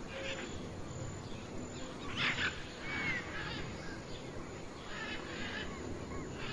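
Faint nature ambience: a steady soft hiss with scattered bird chirps and calls, including a short arching whistle about three seconds in.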